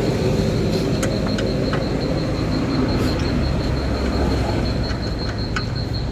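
A steady low mechanical rumble with a faint high steady whine over it and a few scattered light ticks.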